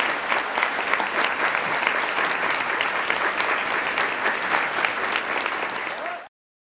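Audience applauding, a dense patter of clapping that cuts off suddenly near the end.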